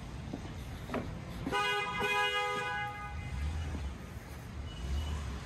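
A car horn sounds one steady two-tone blast about a second and a half in, lasting about a second and a half, over the low rumble of street traffic.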